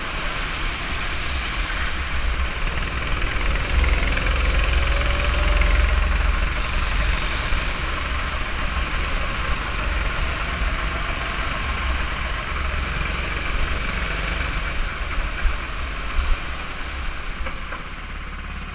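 Go-kart's small engine running while the kart laps, heard from a camera mounted on the kart, with a steady low rumble underneath; the sound eases off a little near the end as the kart slows.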